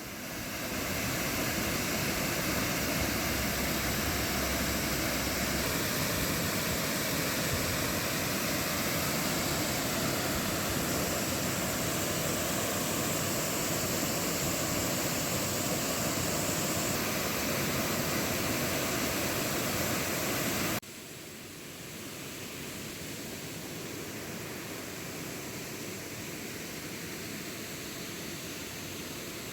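Steady rush of falling water from a waterfall. About two-thirds of the way through it cuts off suddenly and a quieter, steady hiss continues.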